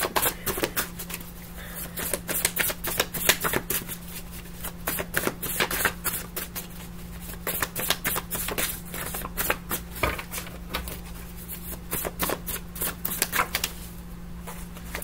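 Tarot cards being shuffled by hand: a long run of quick, irregular clicks and slaps of the cards, over a faint steady low hum.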